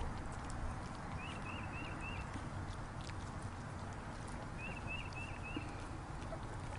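Puppies eating from a big metal pan, with scattered soft clicks of chewing and of food against the pan. A bird sings in the background: a phrase of four short, identical chirps about a second in, and the same phrase again some three seconds later.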